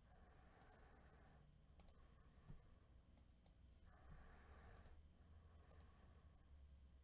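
Near silence with faint computer mouse clicks, each a quick double tick, coming every second or so.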